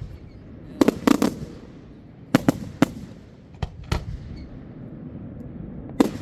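Fireworks display: aerial shells bursting in a series of sharp bangs a fraction of a second to a second apart, with a low rumbling echo between them, then a dense rapid volley of bangs near the end.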